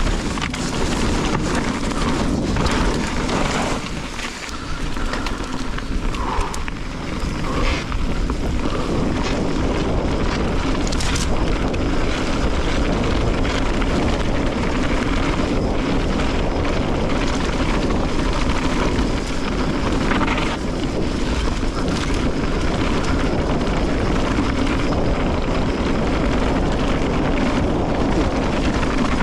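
Steady, loud rush of wind on the microphone and tyres rolling over rough, wet trail as a mountain bike is ridden, with a few scattered knocks and rattles.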